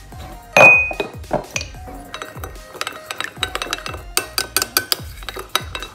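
Metal spoon against a small glass bowl: a sharp clink with a short ring about half a second in, then scattered taps. From about four seconds in come quick, rapid clicks as the spoon whisks a mustard and olive-oil vinaigrette in the bowl.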